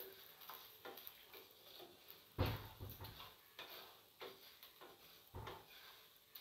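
Wooden spatula stirring dry split urad dal in a non-stick frying pan, the lentils rattling and scraping in quick strokes while they dry-roast without oil. There are two louder knocks, about two and a half seconds and five and a half seconds in.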